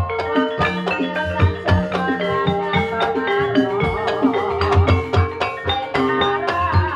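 Javanese gamelan-style music accompanying a jaranan dance: a busy melody of mallet-struck tuned percussion over a steady, repeating drum beat, played loud.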